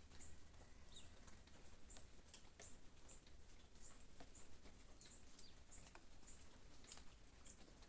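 Faint rain patter with scattered drips, and a small bird giving short high chirps over and over, about one or two a second.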